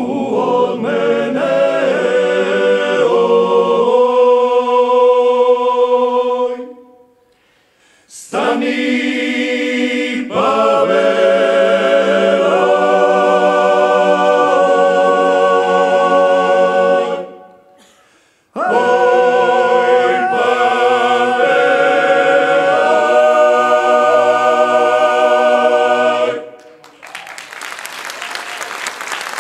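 Male klapa ensemble singing unaccompanied in close Dalmatian multipart harmony: three phrases, each ending on a long held chord, with brief pauses between. Audience applause breaks out near the end.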